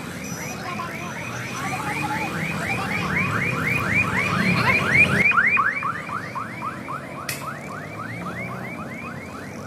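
Electronic alarm sounding a rapid run of rising whoops, about five a second, like a car alarm, loudest about halfway through.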